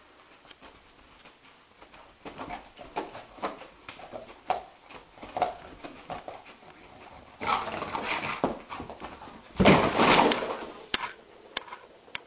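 Large yellow dog paddling its legs on carpet in its sleep: a run of short scuffs and scrabbles, then two louder bursts of scrambling, the loudest about ten seconds in, as it jumps up. A few sharp clicks follow near the end.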